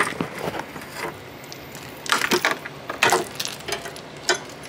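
Honda Accord hood prop rod being unclipped from its plastic holder and set in place, with a few short bursts of clicks and rattles.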